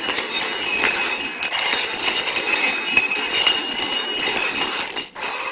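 Hard cups or containers being slid and shuffled over a hard surface in a shell game: a continuous scraping with many clinks, breaking off briefly near the end.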